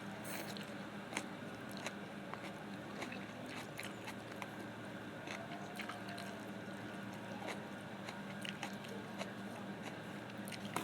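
A person biting and chewing crunchy food, with irregular crisp crunches every second or so over a steady low hum.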